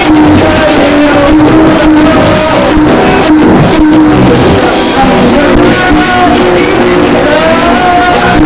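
Loud music: instruments playing with a singing voice over them.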